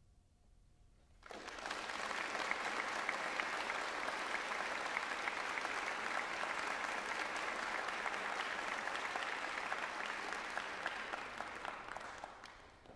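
Audience applauding in a concert hall, breaking out suddenly about a second in, holding steady, and dying away near the end.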